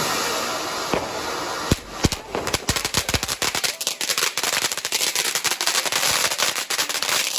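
Garden firework going off: a steady hiss for the first couple of seconds, then a dense run of rapid crackling pops that keeps going.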